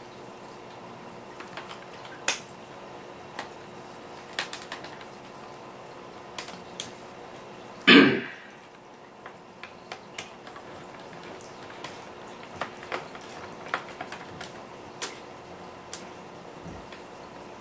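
Scattered light clicks and taps of small screwdrivers and tiny laptop screws being handled and set down on a hard surface, with one louder, brief noise about eight seconds in.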